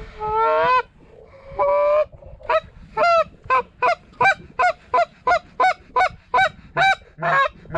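A run of loud goose honks: two longer drawn-out honks, then a quick series of short clipped honks at about three a second.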